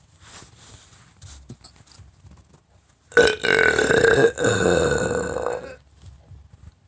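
A person burping on purpose: one long, loud burp starting about three seconds in and lasting nearly three seconds, with a brief break partway through.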